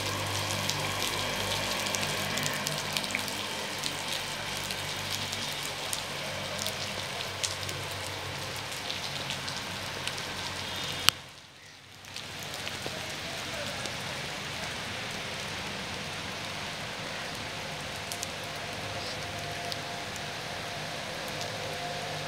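Rain falling steadily, an even hiss with many small drop ticks. About halfway through, a sharp click is followed by a dip in level lasting about a second.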